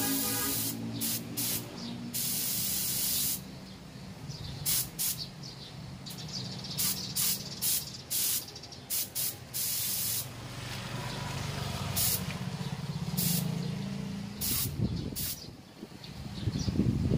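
Gravity-feed spray gun spraying nitrocellulose paint onto a panel: many separate trigger pulls of hissing air, some short and some over a second long, over a steady low hum.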